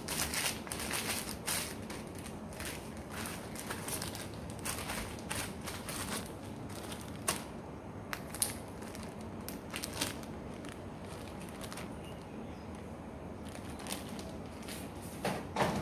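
A clear plastic food bag crinkling and rustling in the hands as seasoned chicken breast is put into it and the bag is squeezed and closed, with a louder burst of crinkling near the end.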